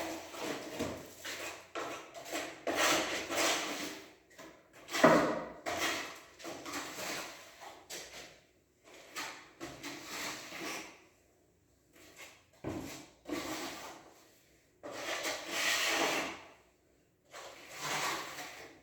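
Wall putty being spread with a roller: a series of rubbing, scraping strokes, each about a second long, with short pauses between them.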